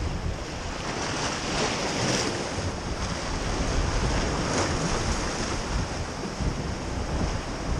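Sea waves washing and breaking against the boulders of a rock jetty, the wash swelling about two seconds in and again near five seconds, with wind buffeting the microphone underneath as a low rumble.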